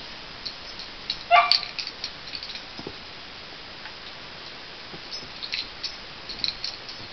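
A small dog gives one short, high yip that rises in pitch about a second and a half in, while dogs playing on the floor make scattered light clicks.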